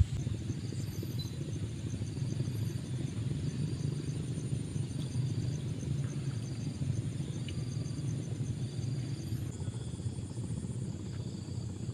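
Insects chirping in high, evenly repeating pulses over a steady low rumble; the insect calls change about nine and a half seconds in.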